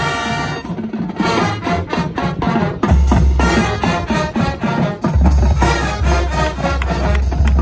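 Marching band playing: brass and saxophones holding chords over quick, regular drum strokes from the percussion section.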